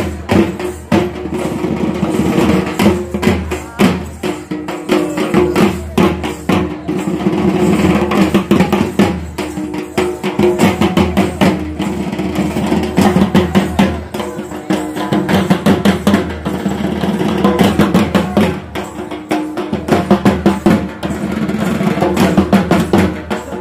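Music of fast, continuous drumming over a steady droning tone.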